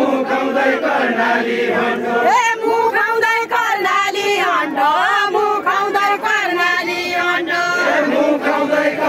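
Deuda folk singing: a group of voices chants a line on steady notes, then about two seconds in a single higher voice, a woman's, sings a verse with gliding pitch above the group. The group comes back in near the end.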